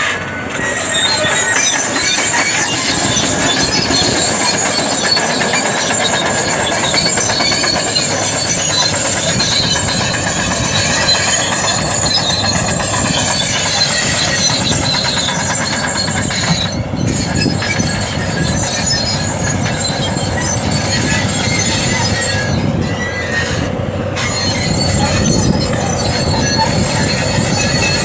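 Caterpillar crawler bulldozer at work pushing dirt: its diesel engine runs under load, and the steel tracks give a continuous high, wavering squeal.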